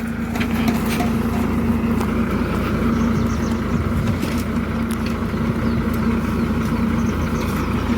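Borewell drilling rig's engine running steadily at a constant speed, with a steady hum throughout and a few faint clicks over it.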